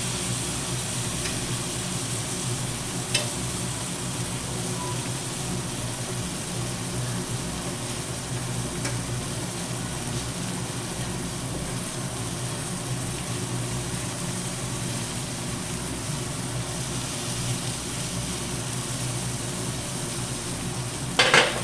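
Jumbo prawns sizzling steadily as they fry in butter, ghee and ginger-garlic paste on a tawa, over a low steady hum. A faint click about three seconds in, and a short clatter of a utensil on the pan near the end.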